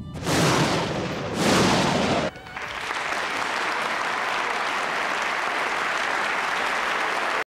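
Two claps of thunder in the first two seconds, then a large audience applauding steadily, which cuts off suddenly near the end.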